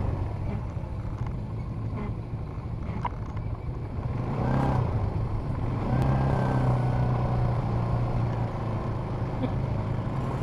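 ATV engine running while riding, its note easing off at the start and climbing again about halfway through as the throttle is opened, then holding steady.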